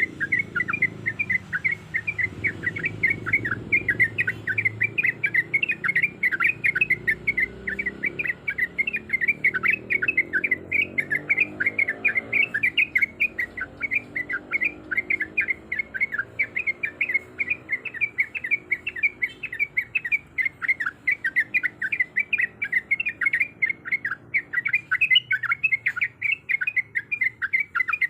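Yellow-vented bulbul (trucuk) singing a long, unbroken rolling chatter of quick chirping notes, about four a second, the rapid 'ropel' call used to lure a rival.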